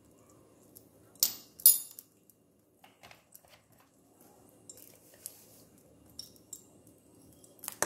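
A metal spoon clinks twice against an aluminium wok, sharp and bright, a little over a second in. Faint scattered ticks follow.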